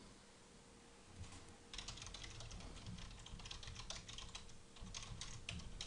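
Faint typing on a computer keyboard: a quick, uneven run of keystrokes that starts about a second and a half in.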